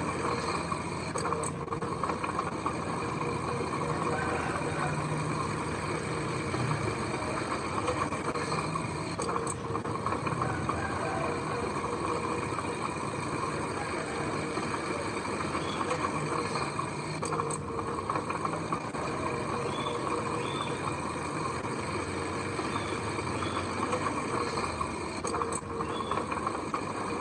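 Heavy earthmoving machinery's diesel engine running steadily, with no big change in level.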